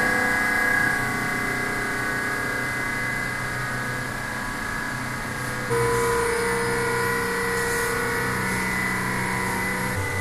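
Sound installation's wall loudspeakers sounding a layered drone of several steady held tones. A little over halfway through, a new lower tone sets in abruptly, the sound grows slightly louder, and it holds.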